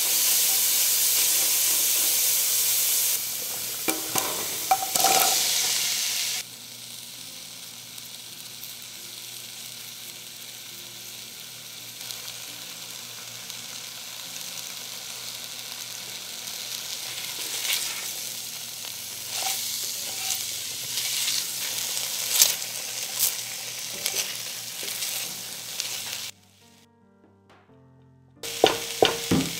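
Garlic, chili flakes and thyme sizzling in hot olive oil in an enamelled pot, loud at first. After about six seconds the sizzle drops to a quieter frying of chopped onion, carrot and potato. A spatula scrapes and knocks against the pot now and then, and the sound drops out for about two seconds near the end.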